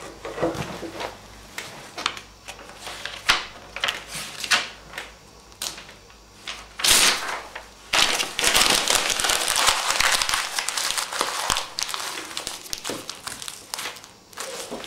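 A sheet of lined notebook paper handled by hand with scattered rustles, then crumpled into a tight ball: dense crinkling from about seven seconds in that fades near the end.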